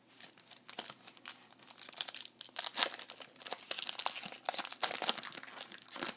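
The wrapper of a trading-card pack being torn open and crinkled by hand: a dense, uneven run of crackling.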